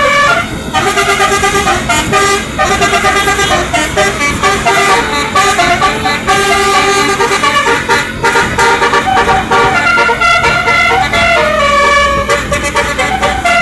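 Basuri telolet bus horns playing a tune as a run of stepped, multi-toned horn notes, with short breaks between phrases.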